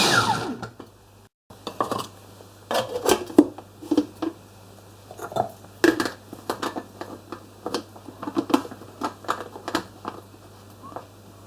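A liquidizer motor spinning down with a falling whine, then after a short break a string of irregular clinks, taps and knocks of kitchenware being handled.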